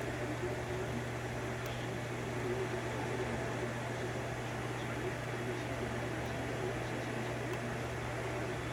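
Steady low electrical hum with an even hiss of room noise, and a few faint ticks.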